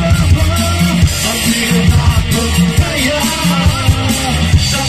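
Live band amplified through a PA: a male singer's voice over electric bass, drum kit and keyboard, with steady deep bass notes under the sung melody.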